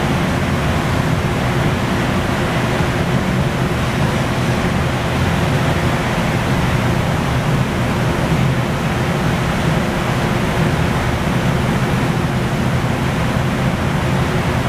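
Loud, steady rushing noise of a glassblowing factory floor, from the gas-fired furnaces and glory holes and the ventilation blowers, with a faint steady hum underneath.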